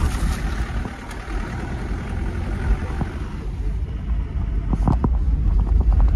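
Car rumbling along as it is driven, a steady low rumble with road noise, and a few short knocks about five seconds in.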